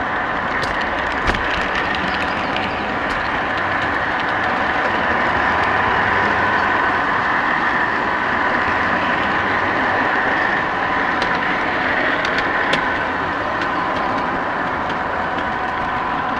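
O-gauge model train rolling along three-rail ScaleTrax track: a steady mechanical whir with a faint high whine and a few sharp clicks.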